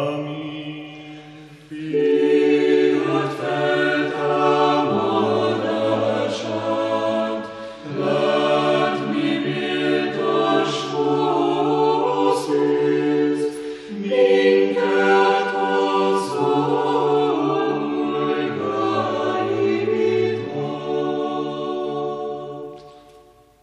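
Orthodox church choir singing a cappella in several parts, holding full chords that change every second or two. The singing drops back briefly, comes in louder about two seconds in, and fades out at the end.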